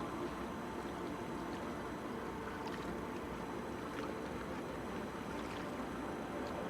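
Steady harbourside ambience: an even wash of noise with a faint low hum running under it, the kind of sound boats and water make at a breakwater.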